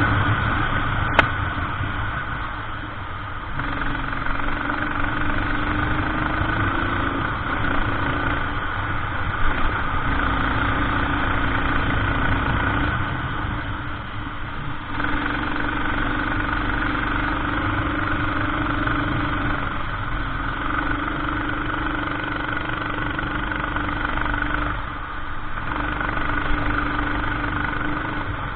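Racing kart engine running under load while lapping, its pitch stepping up and down as the throttle is opened and lifted through the corners, with short lifts about every eleven seconds. A single sharp click a little over a second in.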